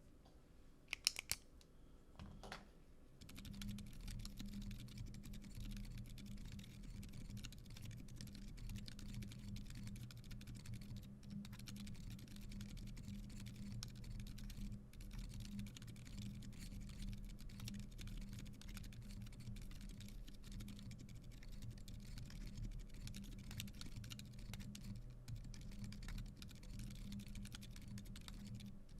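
Typing on an Iron165 R2 custom mechanical keyboard with an aluminium plate and lubed Boba U4 Silent Tactile switches: a steady, faint run of damped keystrokes from about three seconds in. A few sharp clicks sound just before, about a second in.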